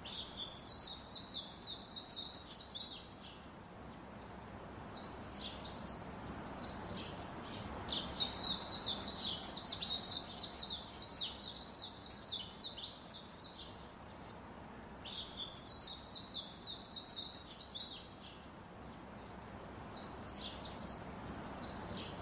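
Small birds chirping in rapid runs of high notes, in bouts of a few seconds with short pauses between, over a steady background hiss.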